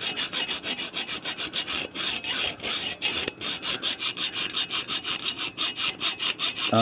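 Hacksaw cutting through a steel handcuff, in quick, even back-and-forth strokes, several a second, with a high metallic ring on each stroke.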